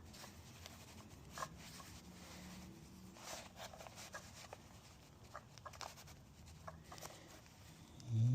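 A 1/4-20 hand tap being turned into a hole in a 3D-printed PETG plastic block: faint scratchy scraping with scattered small clicks.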